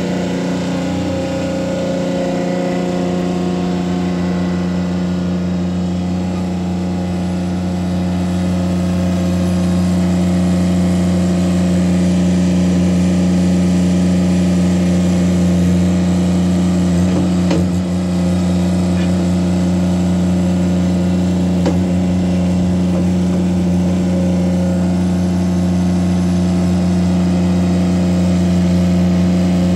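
Ditch Witch SK600 mini skid steer engine running steadily as the machine tracks back and forth and works its bucket in the dirt. It gets a little louder about a third of the way in, with a couple of brief knocks near the middle.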